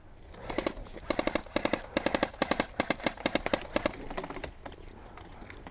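Airsoft gun firing in short rapid bursts of sharp pops, for about four seconds.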